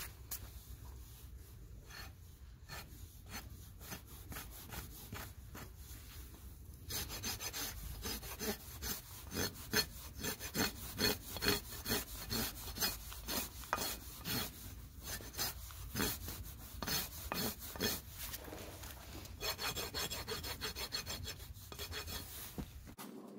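Steel hoof rasp drawn back and forth across a barefoot horse's hoof, filing it down in repeated strokes. The strokes are light at first and much louder from about a third of the way in, at roughly two a second.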